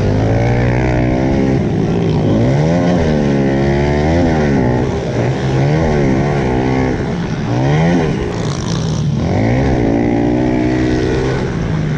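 Several pit bikes racing together, their small engines revving up and falling back again and again as the riders shift and ease off through the turns.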